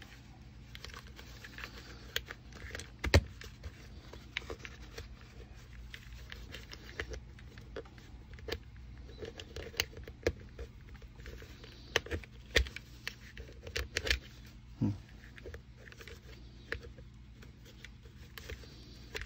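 Handling noise from fitting a clip-in helmet liner suspension into a steel helmet shell: scattered clicks, light knocks and rustling of webbing as its clips are pushed onto the studs inside the shell. There is a sharper knock about three seconds in and a run of clicks later on.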